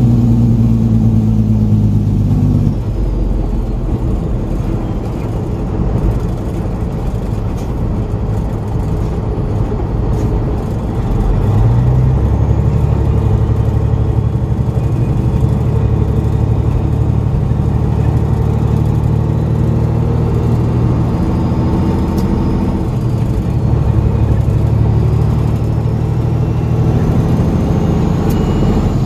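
A semi truck's heavy diesel engine running, heard from inside the cab. It eases off about three seconds in, then pulls hard again from about twelve seconds, rising in pitch and staying loud under load.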